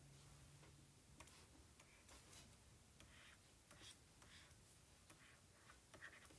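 Near silence: room tone with faint, scattered clicks and a low hum that stops about a second in.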